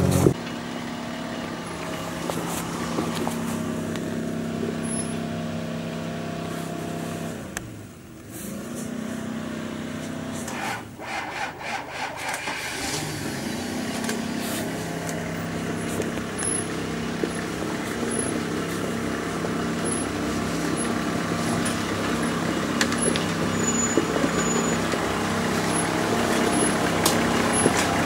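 Off-road SUV engine running at low revs as it crawls over a rutted dirt track, rising and falling in revs a few times.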